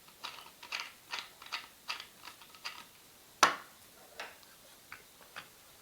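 A run of small mechanical clicks, about two or three a second, then one sharp, much louder click about three and a half seconds in, followed by a few softer scattered clicks.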